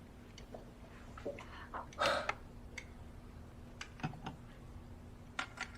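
Soft scattered clicks and taps of chopsticks, bowls and glasses at a dinner table, with one louder brief clatter about two seconds in and a faint steady hum underneath.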